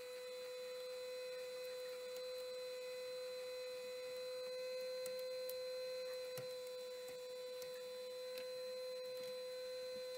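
Steady electrical whine at one pitch from an idle home-built 3D printer, with a few faint clicks as printed plastic parts are pried off its bed, the clearest about six seconds in.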